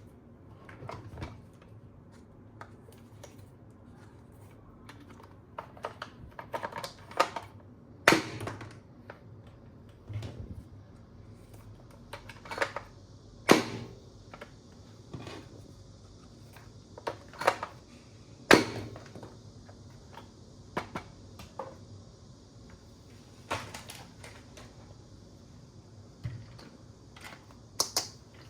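Irregular clicks and knocks of hard plastic toy parts being handled during an unboxing, with a few sharper snaps among the lighter taps.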